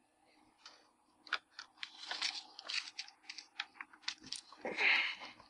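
Handling noise from a small circuit board and its USB cable being plugged in: a quick run of small clicks and rustles, several a second, with a louder rustling rush near the end.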